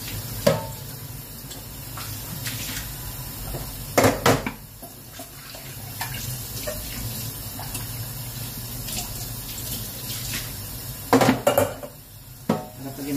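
Kitchen tap running into a stainless-steel sink as a pan, its glass lid and utensils are rinsed under it. Cookware knocks against the sink several times, in a cluster about four seconds in and again near the end.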